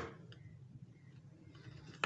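Quiet room with the fading tail of a sharp click at the start, then a faint click or two of plastic toy train track pieces being handled.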